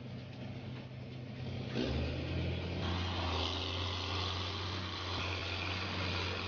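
Walnut tree shaker's engine running. About two seconds in, the drone becomes louder and lower as the shaking begins, and a rushing patter of walnuts and leaves falling to the ground follows.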